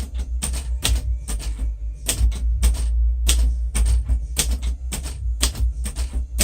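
1947 Royal Quiet Deluxe manual typewriter being typed on: a run of sharp keystrokes at an uneven pace of about three a second, as the symbol and punctuation characters are typed.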